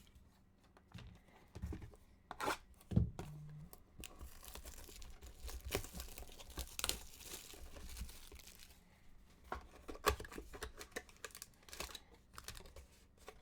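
Trading-card packaging being torn open and crinkled by hand, with scattered light clicks and taps of cards and packaging.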